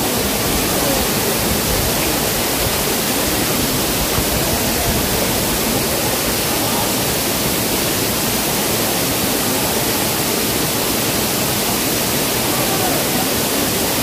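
Waterfall: a steady, loud rush of falling water that does not change.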